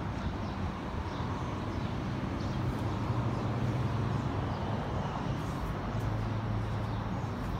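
Steady outdoor city background noise: a constant low hum under an even rushing wash, with no single distinct event.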